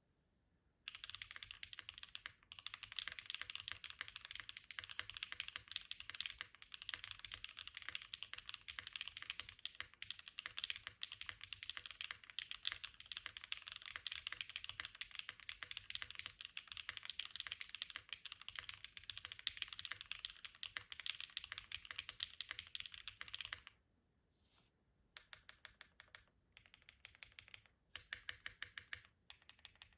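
Mechanical keyboard with HMX Yogurt switches being typed on fast and continuously, a high-pitched clack, then a brief pause and a few short runs of keystrokes near the end.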